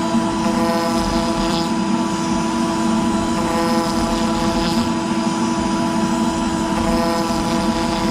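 CNC router spindle running steadily with a 1/4 inch O-flute bit milling a clearance pass in PVC: a constant whine, with a cutting hiss that swells and fades about every second and a half.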